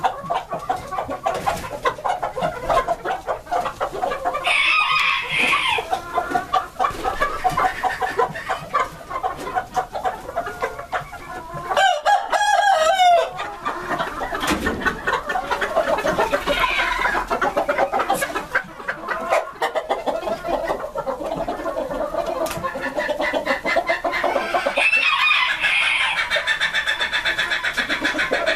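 Flock of Gray Japanese Bantam chickens clucking continuously, with roosters crowing a few times over the chatter.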